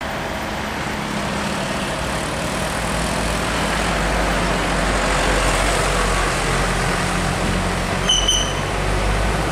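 Diesel engine of a container tractor-trailer running at low speed as it comes up to a sharp bend, a steady low hum with road noise that slowly grows louder. About eight seconds in, a short high-pitched tone sounds briefly.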